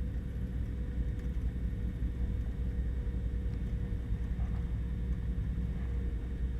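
Beechcraft Baron's twin piston engines running at low power while taxiing, a steady low drone.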